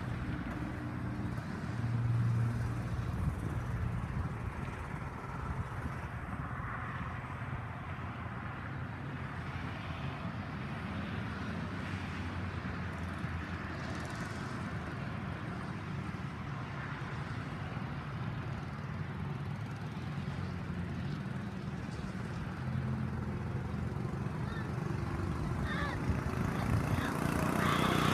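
Mini bike's small engine running at a distance, coming and going slightly, then getting louder near the end as the bike comes back toward the microphone.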